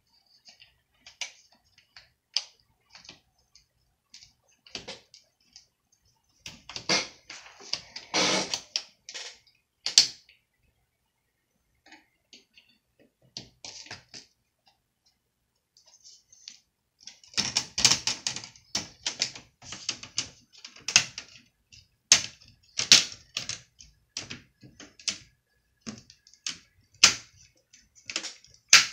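Irregular sharp clicks and taps of plastic parts of a laptop being handled, coming in clusters, busiest about a quarter of the way in and through the second half.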